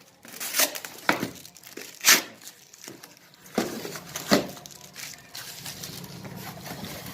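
Parcel packaging being torn open by hand: packing tape ripping and wrapping crinkling in several short bursts, the loudest about two seconds in.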